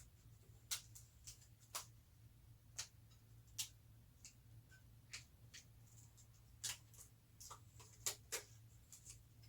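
Protective plastic film being picked at and peeled off a new PNY RTX 5080 graphics card: scattered sharp little clicks and crackles at irregular intervals. A faint low hum runs underneath.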